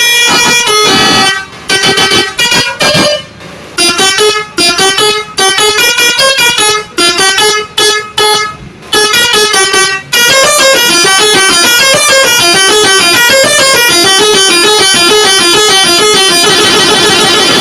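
Bus's multi-tone 'telolet' air horn playing a tune: about ten seconds of short, separate horn notes, then a fast unbroken melody of alternating notes.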